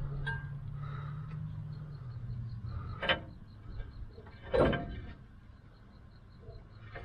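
Metal clunks from a Chevelle's 12-bolt rear axle as it is let down on a hydraulic floor jack. Two sharp clanks come about three and four and a half seconds in, the second the louder, with a few lighter knocks after. A low steady hum underneath stops about three seconds in.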